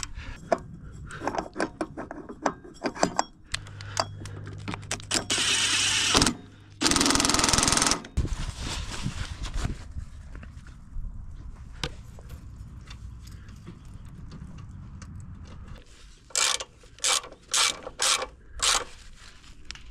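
Tools and parts being worked on a go-kart: scattered clicks and clatter, two longer noisy rushes around the middle, and a quick run of several short sharp bursts near the end.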